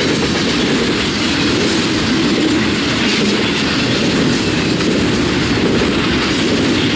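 BNSF southbound Z-train intermodal freight cars rolling past close by: a steady, loud noise of steel wheels running on the rails.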